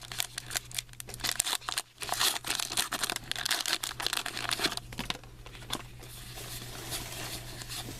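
Trading-card pack wrapper crinkling and tearing as a pack is opened and its cards are handled, busy with sharp crackles for the first five seconds, then quieter rustling, over a steady low hum.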